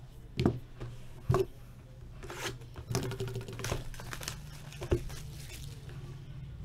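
Plastic shrink-wrap being torn and crinkled off a sealed box of trading cards, with a few sharp knocks as the cardboard box is handled on the table.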